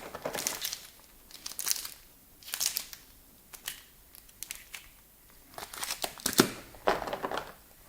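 Board game components being handled and unpacked: plastic wrapping crinkling and rustling in several short spells, with light clicks, between quieter gaps.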